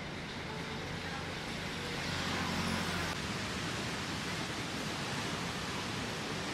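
Steady rushing outdoor ambience. A low hum under it for the first three seconds stops abruptly at a cut.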